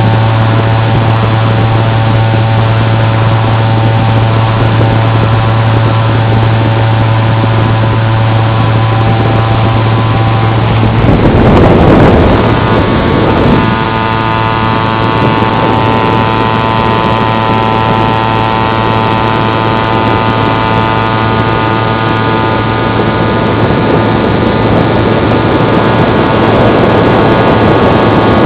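Motor and propeller of a remote-controlled FPV model aircraft heard from its onboard camera: a loud, steady drone with a low hum and several steady whining tones. A rush of wind noise swells about eleven seconds in and fades by fourteen, after which the motor's pitch settles slightly differently.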